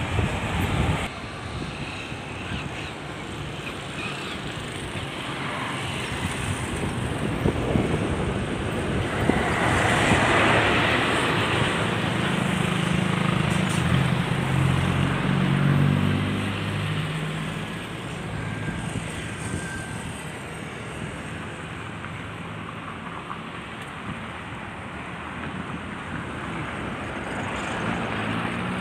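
Airplane passing near the airport, its engine noise swelling to a peak about ten seconds in and then slowly fading.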